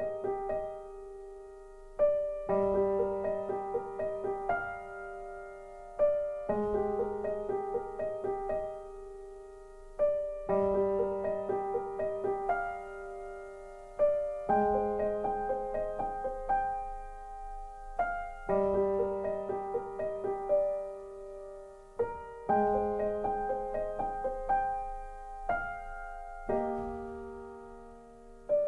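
Slow, gentle piano music: soft chords struck about every two seconds and left to ring and fade, with lighter notes between.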